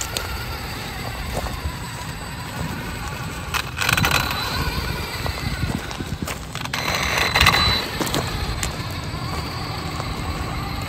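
Losi Baja Rey 2.0 RC desert truck, a 3700Kv brushless electric, driving over gravel and grass: rumbling tyre and chassis noise with two louder surges of throttle, about four and seven seconds in, each carrying a high motor whine.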